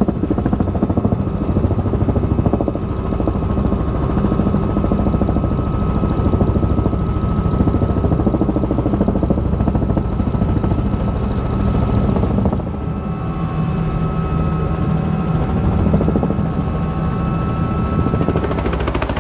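Small helicopter's engine and rotor heard from inside the cabin on the approach to land: a steady, dense drone of rotor beats with a thin high engine whine. The level dips slightly and the whine shifts a little about two thirds of the way through.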